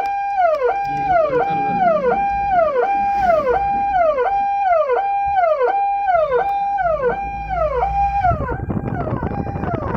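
Ambulance siren cycling over and over: each cycle holds a high tone briefly, then falls away, about one and a half cycles a second. It stops about eight seconds in, giving way to a noisy rumble.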